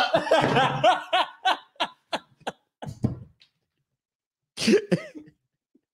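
Hearty laughter: a run of short, breathy bursts that trail off over about three seconds, then a brief pause and another short laugh near the end.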